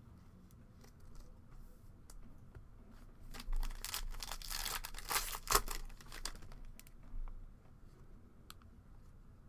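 Trading-card pack wrapper being torn open and crinkled: a rustling tear about three and a half seconds in that lasts some three seconds, with light clicks of handled cards around it.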